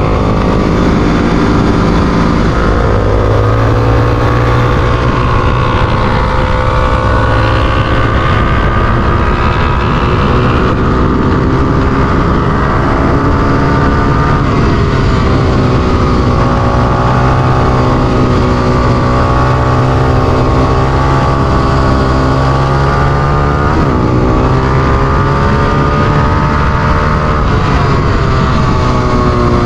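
Onboard sound of a Honda XR250 Tornado's single-cylinder four-stroke engine, run hard around a racetrack, with wind rush. The engine note holds high and dips and climbs again a few times.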